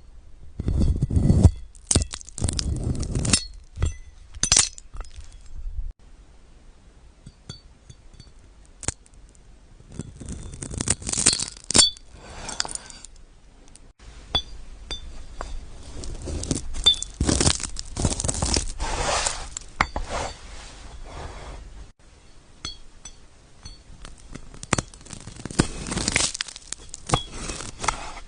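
Crisp food cracking and crunching close to the microphone, in bursts of sharp, glassy snaps with short pauses between.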